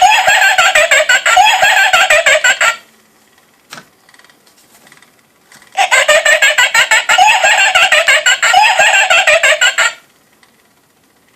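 Halloween rocking witch decoration playing its recorded cackle through a small speaker: two bursts of rapid cackling, each about four seconds long, with a quiet gap between. The sound is thin, with no bass.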